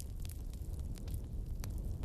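Wood bonfire burning, a low steady rumble of flames with a few sharp crackles and pops from the burning wood.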